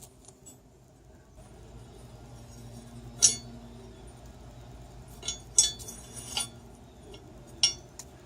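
Sharp metal clinks, about five in all, the first a little after three seconds in the loudest: loose hitch bolts and hardware knocking against the car's underbody as they are fished into the frame with a wire.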